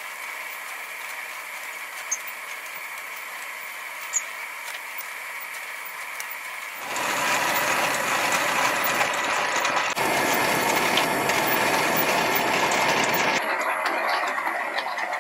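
A steady hiss with a few faint clicks, then from about seven seconds in a stainless hand coffee mill grinding beans, a loud gritty rattle that eases off near the end.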